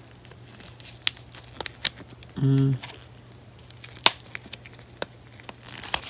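Cardboard lighter packaging handled and pried at with gloved hands: light crinkling with a few sharp clicks scattered through. A brief voiced 'mm' about two and a half seconds in.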